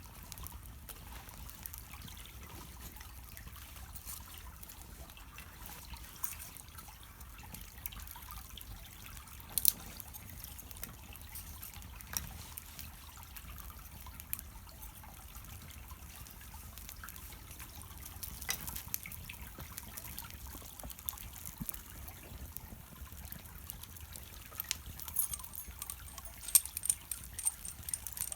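Small wood fire burning on the charcoal in a shichirin, a steady hiss with scattered sharp pops and crackles that come more often near the end.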